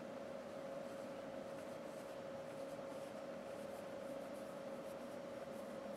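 Faint soft rubbing of cotton being rolled between the fingertips into a wick, over a steady faint hum.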